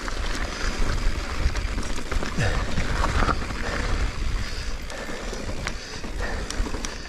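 Mountain bike, a 2021 Giant Reign Advanced Pro 29, ridden over dirt and sandstone: tyre rolling noise with scattered clicks and rattles from the bike. Wind rumbles on the action-camera microphone throughout.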